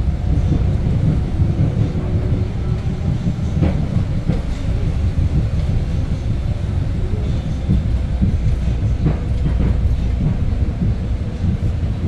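Inside a Hyundai New Super Aerocity city bus with a C6AF CNG engine, heard while driving: a steady low running rumble from the engine and road, with a few short knocks and rattles from the body about four and nine seconds in.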